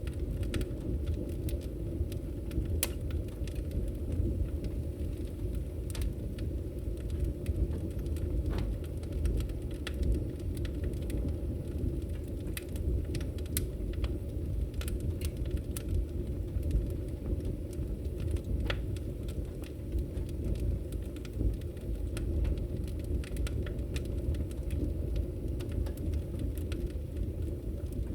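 Wood logs burning in a fireplace: a steady low rumble from the fire with scattered sharp crackles and pops from the wood.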